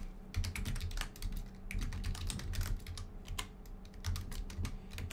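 Typing on a computer keyboard: a fast run of key clicks, thinning out briefly a little past the halfway point before picking up again.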